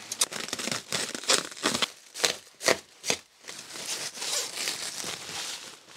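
Plastic stretch wrap and packing bags crinkling and rustling as they are pulled off by hand, in irregular crackles.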